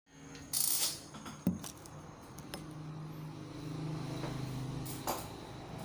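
Rustling and a sharp knock as the camera is handled, then a low electric guitar note ringing quietly through an amplifier for a couple of seconds, with a scrape near the end.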